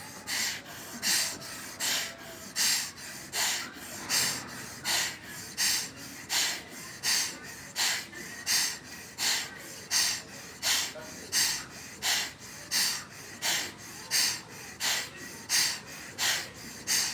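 Bhastrika pranayama (bellows breath) done alternately through the right and left nostril: a strong, sharp nasal breath about every three-quarters of a second, each with a softer breath between, in a steady rhythm.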